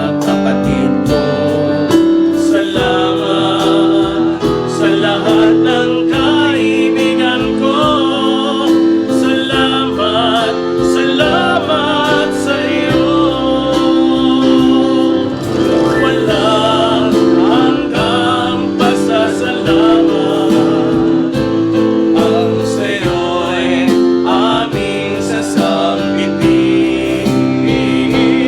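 Worship song: a singing voice over steady instrumental accompaniment.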